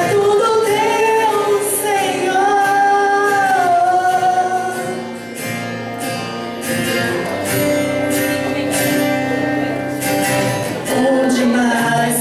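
Gospel song: a woman singing held, bending notes over guitar and band accompaniment.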